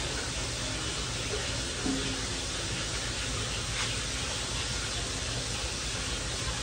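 A steady hiss, with cooking oil poured in a thin stream from a plastic bottle into an electric frying pan.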